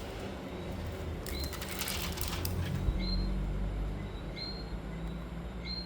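Plastic film crackling as it is handled and peeled, with a short high chirp repeating about every second and a half over a low steady hum.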